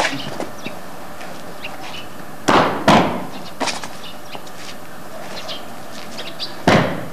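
Sharp impact sounds from a Xingyiquan practitioner's explosive stamping steps and strikes: two about half a second apart a few seconds in, and one more near the end, over a steady tape hiss.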